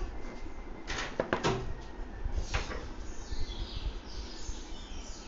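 Plastic scale ruler shifted and set down on drawing paper: a few scrapes and taps about a second in, and another about two and a half seconds in.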